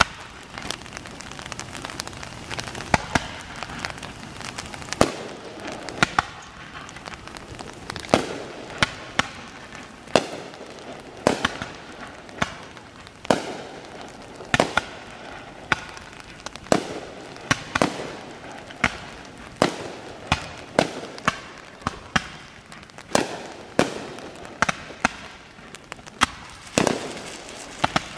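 Fireworks display: a long, irregular string of sharp bangs from shells bursting overhead, roughly one or two a second, with a steady hiss between the bangs.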